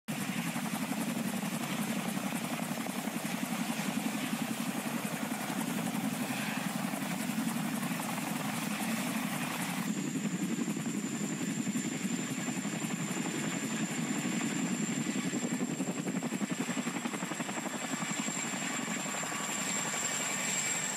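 Helicopter rotors chopping steadily in rapid, even pulses. About halfway through, a high steady turbine whine joins in.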